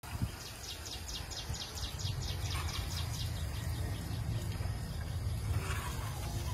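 Rural outdoor ambience: a rapid run of high chirps, about five a second, for the first three seconds or so, over a low steady rumble.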